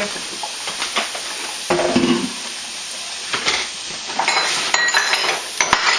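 Chopped onions and peppers sizzling in a stainless sauté pan, a steady frying hiss, with scattered clinks of metal pots and utensils and a brief metallic ringing about two-thirds of the way through.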